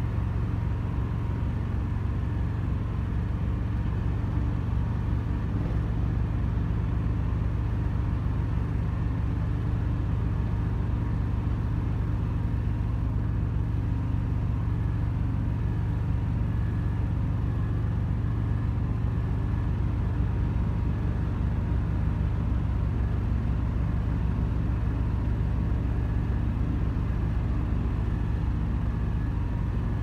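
An engine running steadily without revving: a constant low rumble with a faint steady whine above it.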